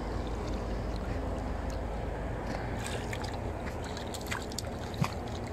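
A small dace splashing and thrashing at the water's surface as it is reeled in toward the bank on a fishing line. The splashes come in scattered bursts, mostly in the second half, over a steady low rumble.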